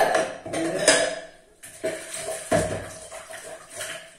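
Ceramic bowls clinking and knocking as they are set down and stacked upside down on a stainless steel draining board, several separate knocks.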